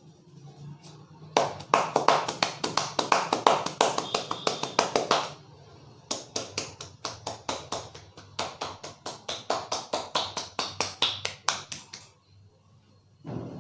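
Barber's hands striking a head in a fast percussive massage, about seven slaps a second, in two long runs with a short pause between them.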